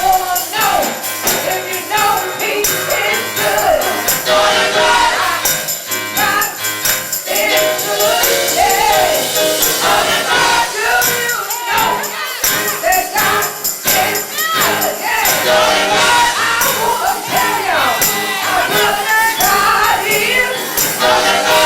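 Live gospel music in church: voices singing over a shaken tambourine's jingles.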